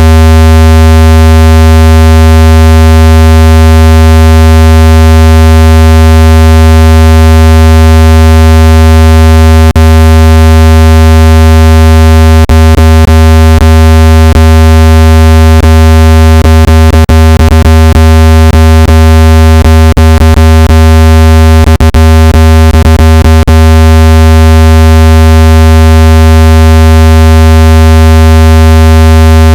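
Loud, steady, low buzzing synthesized test tone of the kind played to eject water from a phone speaker, holding one pitch throughout. Brief clicks crackle through it in the middle section.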